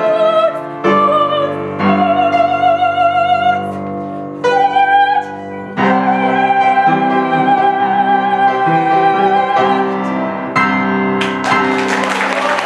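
A woman singing in classical operatic style with wide vibrato over piano accompaniment, holding a long final note from about six seconds in. Applause breaks out near the end.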